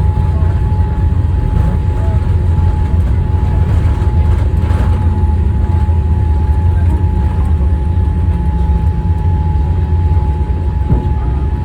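Cabin noise inside a Boeing 787 Dreamliner during landing: a loud, steady low rumble with a steady whine held on one pitch.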